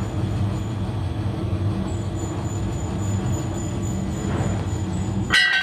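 Steady drone of workshop machinery running, with a low hum. Near the end, a short metallic clang that rings briefly.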